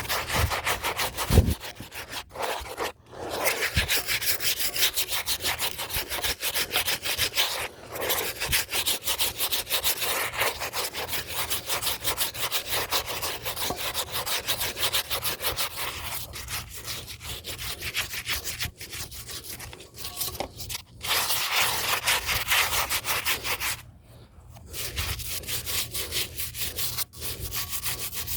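A brush scrubbing old concrete in rapid back-and-forth strokes, stopping briefly a few times, to clear dirt and grime before painting.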